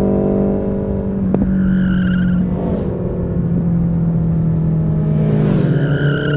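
Suzuki Hayabusa sports bike's inline-four engine running under way. Its pitch dips briefly twice, then climbs again near the end.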